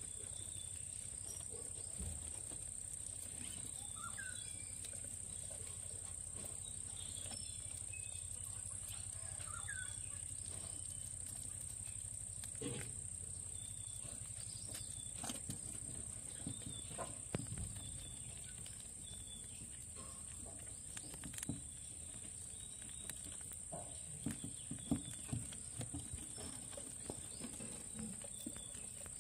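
Insects, likely crickets, giving a steady high-pitched drone, with faint scattered clicks and short chirps over it.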